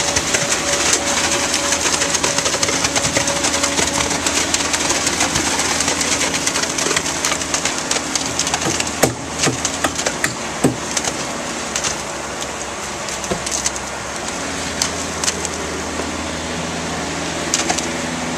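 Concrete pump truck's engine running steadily at a construction site, with scattered knocks and clanks over it; the sharpest knocks bunch together about halfway through.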